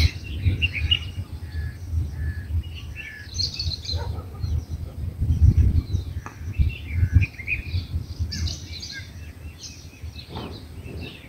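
Many birds chirping in short scattered calls, over a gusting rumble of wind on the microphone.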